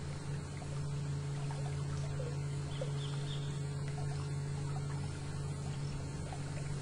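Electric canoe motor running at a steady low hum as the canoe cruises slowly.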